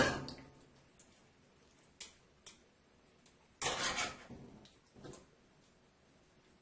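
Cookware and utensils being handled in a kitchen: a sharp clank with a short ring-out at the start, a couple of light clicks, and brief scraping or rattling about four seconds in and again around five seconds.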